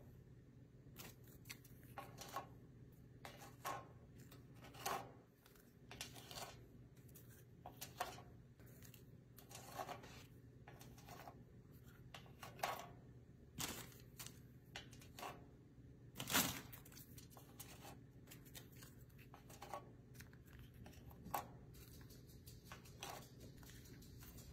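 Saltine crackers being set down one at a time on a metal baking sheet: faint, light, dry taps and scrapes, roughly one a second, with one louder knock about two-thirds of the way through.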